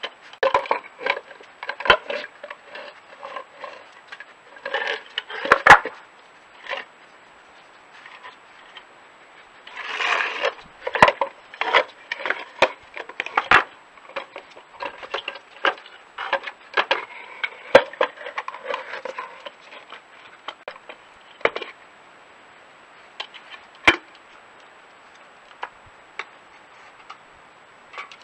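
Small wooden feeder box knocking and scraping on stone paving slabs as a badger noses and shoves it about, in irregular clusters of sharp knocks with quieter gaps between.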